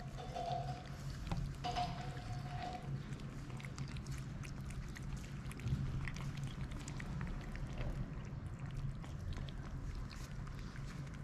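Kittens and cats eating wet cat food from shared dishes: a run of small wet clicks from chewing and lapping, with two short thin tones in the first three seconds.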